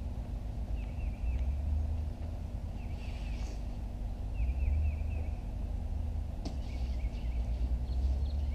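A songbird calling in short phrases of a few quick chirps, repeated every second or two, over a steady low rumble. A single sharp click sounds about six and a half seconds in.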